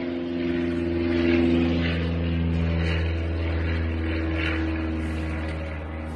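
A steady engine-like drone, loudest about a second in and then slowly easing off.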